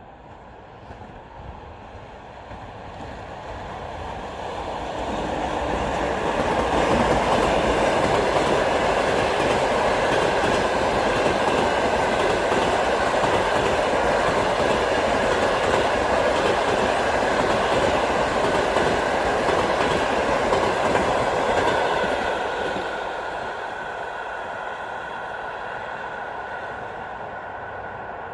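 EP2K electric locomotive hauling a passenger train past, with its wheels running on the rails: the sound builds over the first several seconds, stays loud and steady for about fifteen seconds as the train goes by, then fades as it moves away.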